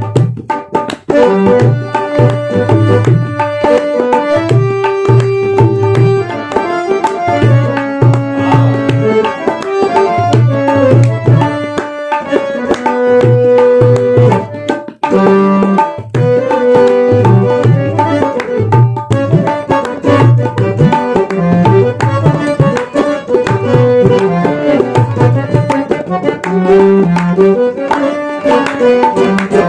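Tabla played in a steady rhythmic cycle, deep bass-drum strokes alternating with sharp treble-drum strikes, over a held melodic line. The beat drops out briefly about halfway through.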